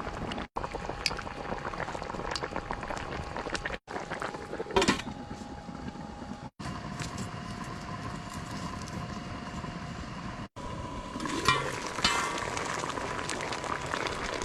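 Braised beef sauce bubbling and sizzling in a pot as it reduces, with a few clinks of a utensil against the pot.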